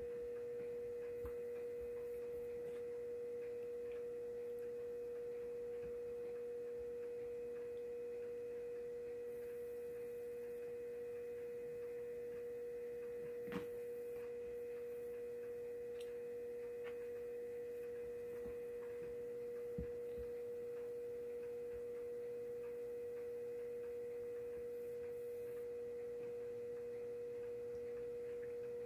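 A steady humming tone at one unchanging pitch, with two brief faint clicks, about 13 and 20 seconds in.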